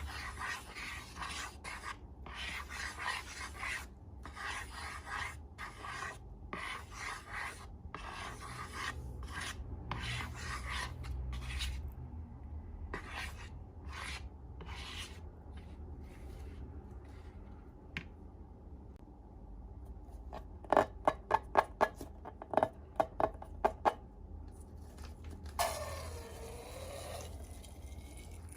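Slime being worked and mixed by hand, with repeated rasping, rubbing strokes. About three-quarters of the way through comes a quick run of sharp sticky pops and clicks, then a short falling squeak near the end.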